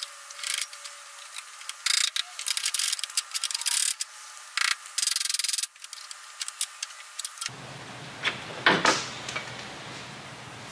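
Clusters of sharp metallic clicks and taps as the purple SLR angle-kit lower control arm is knocked and worked free with a hammer. After about seven and a half seconds the sound changes to a quieter steady noise with one short scrape.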